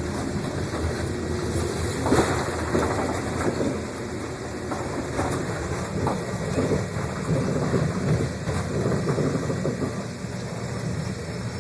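Passenger train running along the track: a continuous rumble with irregular clacks and knocks from the wheels and cars, one louder knock about two seconds in.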